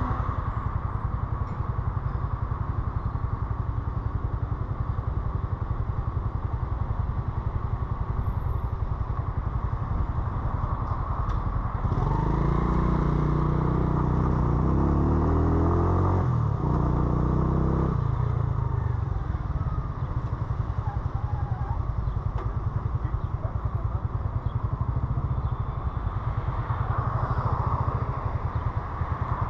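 Motorcycle engine running at low city speed, heard from the rider's seat. A little under halfway through it revs up with rising pitch, drops briefly as at a gear change, climbs again, then settles back to steady low running a few seconds later.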